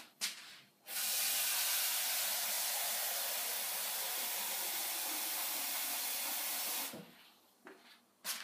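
Water running steadily from a tap in a hissing rush for about six seconds, starting suddenly about a second in and cutting off near the end, with a couple of short clicks around it.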